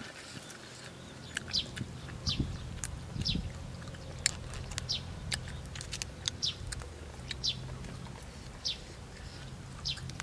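A bird repeating a short, high chirp about once a second, with scattered sharp clicks between the calls.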